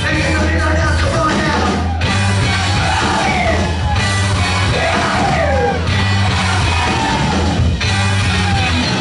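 Live rock band playing: a steady bass line, drums and guitar, with the singer yelling and sliding his voice up and down over them.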